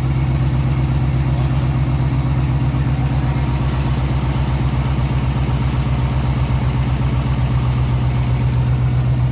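GM 5.3-litre V8 truck engine idling steadily with a fast, even pulse, freshly started after work on a misfire and sounding better, with no misfire obvious at idle.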